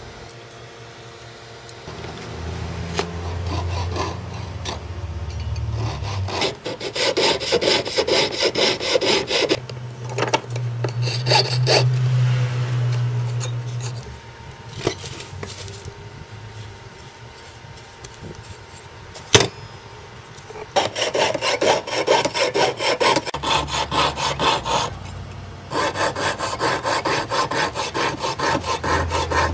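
Jeweller's piercing saw cutting through a scribed metal plate on a wooden bench pin: fast, even back-and-forth strokes in two long runs with a quieter pause between them, and a single sharp click in the pause.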